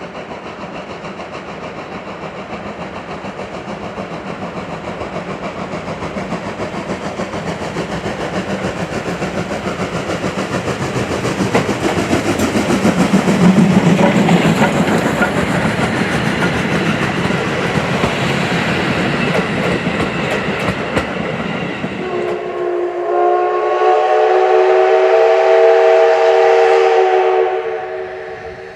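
Steam locomotive D51 200 working a train, its rapid exhaust chuffs and running noise growing louder to a peak about halfway through. About 22 seconds in it sounds a long chime steam whistle of several steady notes for about five seconds.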